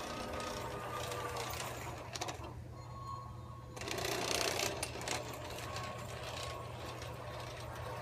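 USA Trains Hudson model steam locomotive's electric drive motor and running gear whirring steadily as it runs along the track, freshly lubricated. The sound grows loudest about four seconds in as the locomotive passes close by, then eases off.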